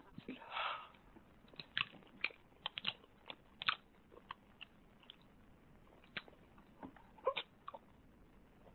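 Noisy eating: a spoon scraping and knocking against a metal frying pan, with chewing and mouth sounds, as short scattered clicks and scrapes and one longer scrape about half a second in.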